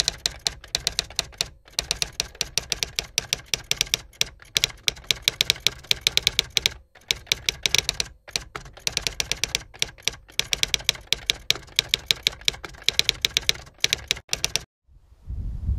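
Typewriter typing sound effect: rapid runs of key clicks broken by short pauses, stopping shortly before the end, when a low rumble comes in.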